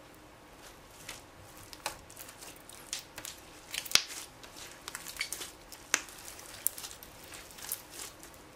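Glossy slime squeezed and folded by hand, giving irregular sticky clicks and pops of trapped air; the sharpest pops come about four and six seconds in.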